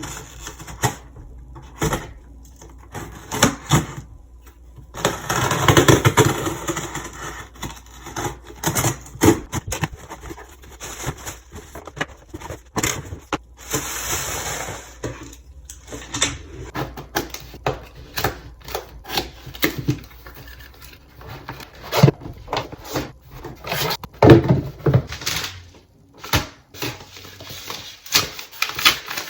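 Irregular clicks, knocks and rustling from objects being handled close to the microphone, with a longer stretch of rustling about six seconds in and again around fourteen seconds.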